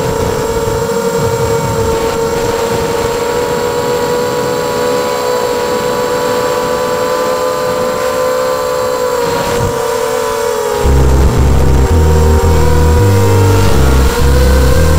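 The quadcopter's Elite 2204 2300 kV brushless motors and three-blade 5x3 propellers whine steadily, the pitch drifting slightly with throttle, as heard from the onboard camera. About eleven seconds in, louder music with a heavy, stepping bass line comes in over the motor whine.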